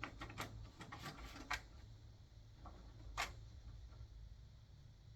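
Paper being loaded into a printer's paper tray: a cluster of light clicks and rustles in the first second and a half, then one sharp click about three seconds in.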